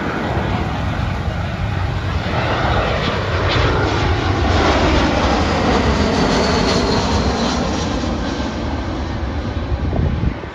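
Wizz Air Airbus A320 jet engines on landing approach, passing low overhead. The engine noise swells to its loudest around the middle, with a faint falling whine, then eases off and drops suddenly near the end.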